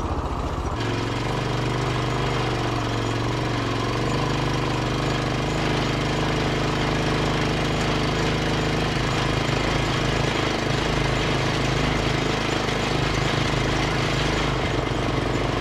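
2017 Rokon Ranger two-wheel-drive motorcycle's single-cylinder engine running steadily under load, pulling up a loose dirt hill in low gear. Its pitch wavers a little in the first few seconds, then holds steady.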